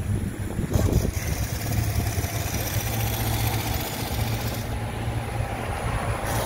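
Steady low machine hum, like an engine or motor running at a constant idle.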